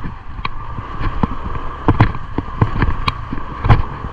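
Honda ADV150 scooter riding slowly over a rough, muddy dirt road: irregular knocks and rattles as it jolts over bumps, about seven in four seconds, over a steady low rumble.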